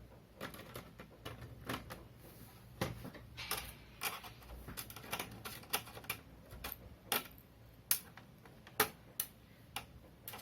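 Irregular light clicks and taps of a small screwdriver and fingers working on a plastic laptop base as its screws are taken out.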